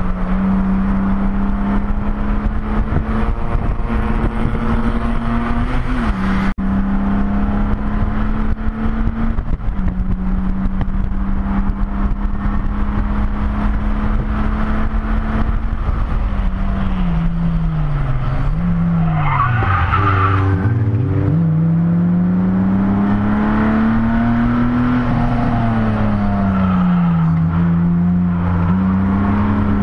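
A race car's engine heard from inside the cockpit, running hard with its pitch stepping at gear changes. About two-thirds through, the revs fall sharply and climb back, with a brief tyre squeal.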